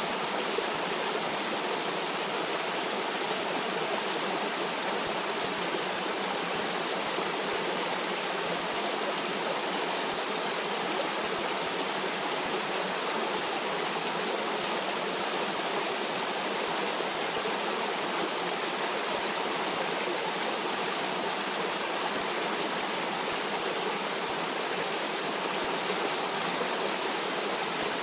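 Stream water rushing steadily, an even, unbroken hiss with no changes.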